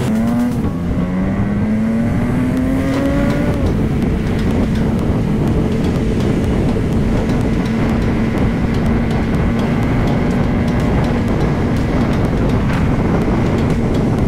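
Motorcycle engine accelerating, its pitch rising over the first three or four seconds, then holding steady at cruising speed. Dense low wind and road rumble on the helmet-mounted microphone runs underneath.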